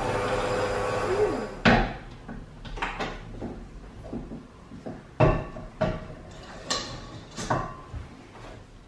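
A kitchen appliance's steady motor hum cuts off about a second and a half in. It is followed by a string of sharp knocks and clatters of kitchen items being handled and set down, about eight in all.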